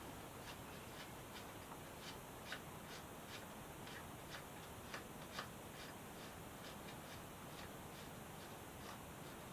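Faint, light clicks repeating about two or three times a second, a few of them louder.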